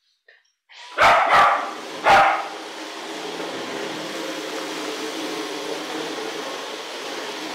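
A dog barks three times in quick succession over a steady background hum.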